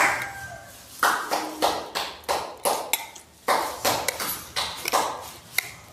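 Eating sounds close up: a run of short taps and clicks, about two or three a second, from hands, food and plates during a meal of fried catfish and rice eaten by hand, with one brief dish-like ping.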